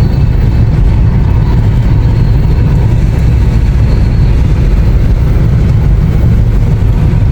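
Car driving along a road: a steady, loud low rumble of engine and road noise.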